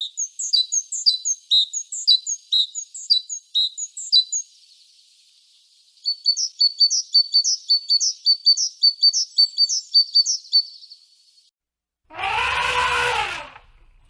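A songbird singing two bouts of rapid, high repeated chirps, about four or five notes a second, with a short pause between them. Near the end a louder, drawn-out animal call cuts in once, rising and falling in pitch.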